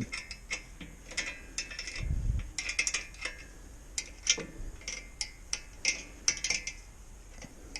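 Socket-set ratchet wrench clicking in short runs as it turns the mini bike's fender bolts, with a low thump about two seconds in.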